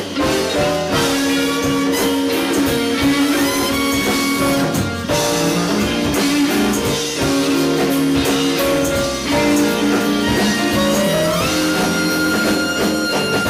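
Live blues band playing an instrumental passage led by electric guitar over drum kit and the rest of the band, with a long note slid up into and held near the end.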